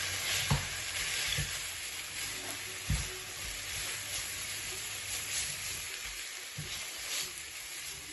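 Stir-fry of chicken and vegetables sizzling in a pan as egg noodles are tipped in, with a steady hiss and a few soft knocks.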